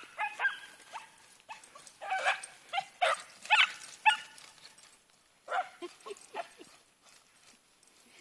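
A dog yipping and barking in short, quick bursts, a flurry over the first few seconds and another a little over five seconds in, while playing chase with another dog.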